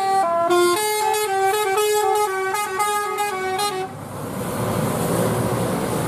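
Tour bus's multi-tone telolet horn playing a quick stepped melody, then cutting off about four seconds in. Engine and road noise of passing traffic follows.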